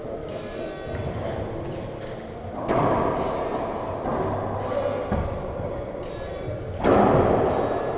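Racquetball shots in an enclosed court: two loud, sharp hits of racquet on ball and ball off the walls, about four seconds apart, each ringing on in a long echo.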